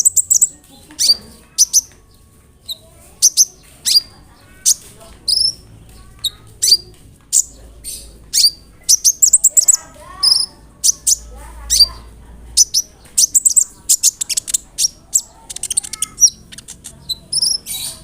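Olive-backed sunbird (kolibri ninja) singing: rapid, sharp, high-pitched chirps and short trills in irregular bursts, fast and dense in places.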